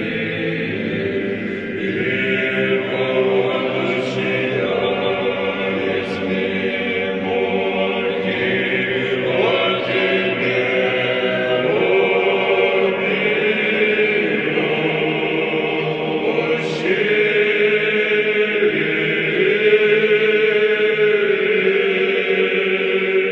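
A choir singing Orthodox church chant in slow, long-held notes, the harmony shifting every second or two.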